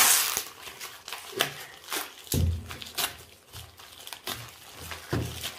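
Plastic courier mailer bag being torn open and crinkled by hand. A loud rip comes right at the start, then irregular crackling rustles.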